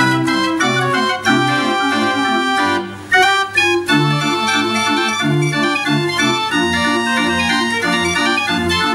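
Verbeeck 45-key street organ playing a quickstep medley: pipes carry the melody over a steady bass and off-beat chords, with a short break in the music about three seconds in.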